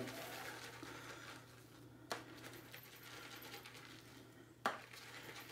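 Pure badger shaving brush swirled in a tub of soft shaving cream to load it: a faint bristly scrubbing, with two small clicks, about two seconds in and near the end.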